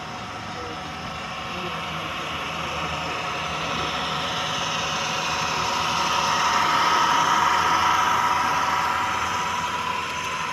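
Model Union Pacific freight train with a distributed-power (DPU) locomotive running past. Its running noise, with a steady whine in it, grows louder to a peak about seven seconds in, then fades.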